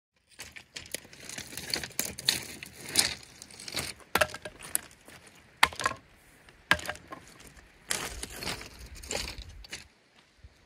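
Beach pebbles crunching and clattering as someone moves about on shingle and handles gear on the stones, with several sharp clacks standing out.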